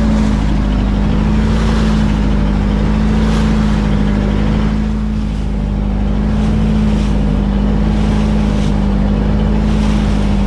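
Nissan engine of a wooden motor boat running steadily under way, a loud, even drone, with water rushing and spraying along the hull.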